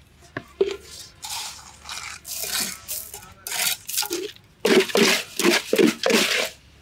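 Gritty scraping and rustling of wet sand-and-gravel concrete mix being scooped by hand out of a pit, ending in a loud run of scooping strokes about two a second. A few sharp knocks about half a second in, from a heavy round cement tamper against the steel mould.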